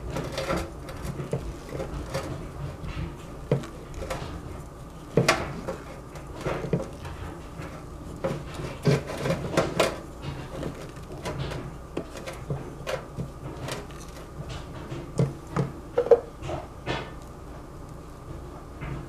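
Spatula stirring and scraping thick chocolate mousse in a stainless-steel pot, with irregular scrapes and sharp knocks of the utensil against the metal sides, loudest about five, nine to ten and sixteen seconds in.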